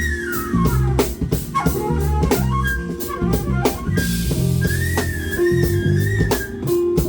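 Live jazz band music: drum kit keeping a steady beat under a bass line and guitar, with a flute melody holding wavering high notes through the second half.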